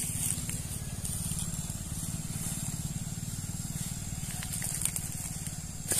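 A motorcycle engine idling steadily: a low, evenly pulsing rumble.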